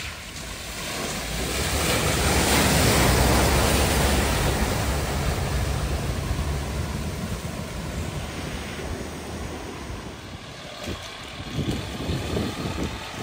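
A vehicle driving through deep floodwater at a ford: a low engine hum under a rushing wash of water. The wash swells over the first couple of seconds and fades away by about ten seconds in.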